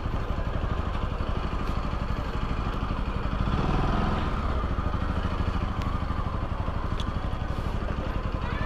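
Small motorcycle engine running steadily at low speed, growing briefly louder about four seconds in.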